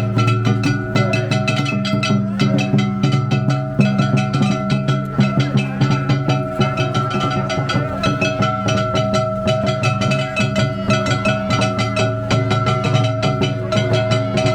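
Danjiri hayashi festival music from a float: rapid, continuous drum and percussion strikes over a steady held tone.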